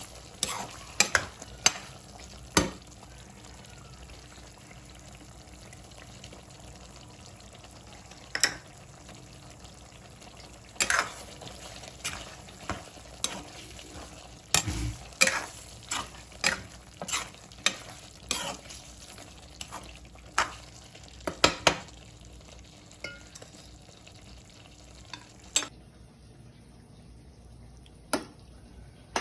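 Goat kidney curry frying in a pan, with a steady sizzle and a spoon scraping and knocking against the pan at irregular intervals as it is stirred. The sizzle thins out about four seconds before the end.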